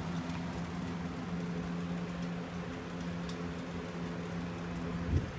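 Steady electric hum of a box fan running, over a soft hiss. A single thump about five seconds in is the loudest sound.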